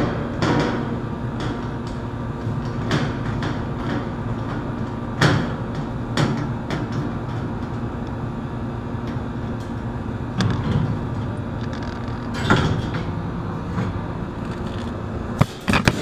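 Screwdriver and sheet-metal access panel of an air-conditioner condensing unit clicking and knocking now and then as the panel screws are backed out and the panel is lifted off, the sharpest knocks near the end. Under it runs a steady machine hum with a low even drone.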